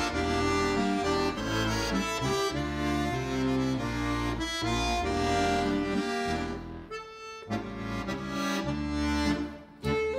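Instrumental background music: sustained chords over a bass line, thinning out briefly about seven seconds in.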